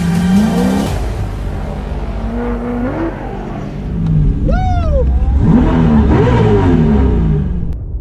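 Race car's Lingenfelter Eliminator Spec R V8 revving up and down hard as the car is driven through an autocross cone course, pitch rising and dropping with each shift and corner. About halfway through there is a short high squeal that rises and falls in pitch. The sound fades out near the end.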